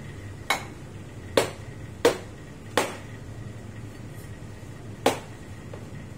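Sharp knocks and clinks of coffee cups and a stainless milk pitcher being handled on the espresso bar, five in all with a short ring after each, four close together and the last a couple of seconds later, over a steady low hum.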